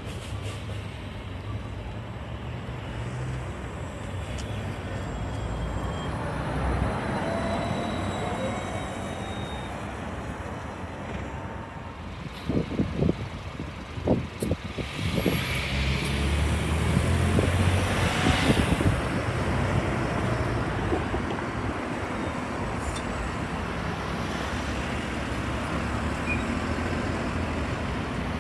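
City transit buses in street traffic, with a steady hum of passing vehicles and a faint sliding whine early on. A few sharp knocks come around the middle. Then a diesel-electric hybrid bus's engine runs loudest as the bus pulls away.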